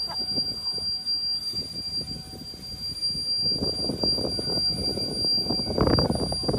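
Empty freight cars rolling slowly underneath as the train brakes toward a stop: a dense clatter of wheels and clanking car bodies and couplers, growing louder about halfway through. A steady high whine runs throughout.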